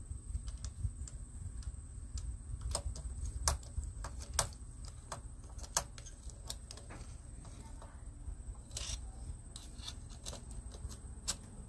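Scattered, irregular metallic clicks and ticks from a bar-mounted chainsaw sharpening jig and the saw chain as the jig's knobs and crank are handled and set on the bar, over a steady low rumble.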